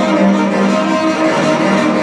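Solo ajaeng, the Korean bowed zither, played with its wooden bow: several low notes held and overlapping, with a gritty bow noise over them.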